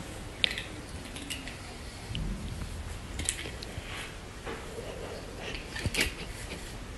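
Grooming brush raking through a long-haired cat's fur in short, scratchy strokes, the sharpest about half a second, three seconds and six seconds in.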